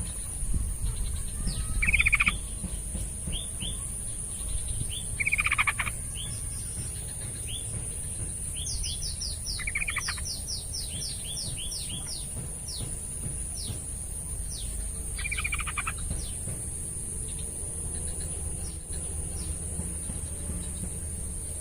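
Yellow-vented bulbul (trucukan) singing short, bubbly phrases three times, with runs of quick downward chirps in between, over a steady high-pitched whine and a low rumble.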